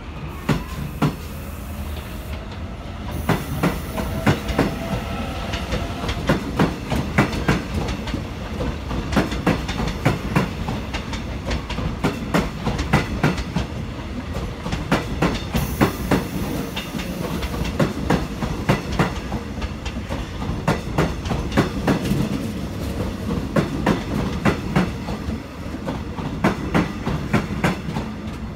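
Seoul Subway Line 1 electric train running, heard from on board: a steady low rumble with wheels clacking irregularly over rail joints. A faint gliding whine can be heard a few seconds in.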